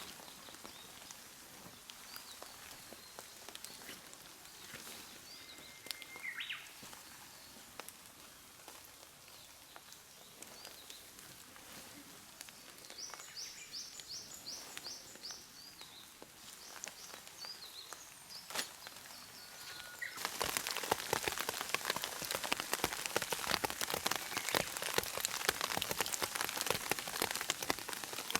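Steady light rain in a forest, with a few birds chirping and one quick trill of repeated high notes. About two-thirds of the way through, the rain suddenly turns much heavier and louder, a dense patter of drops.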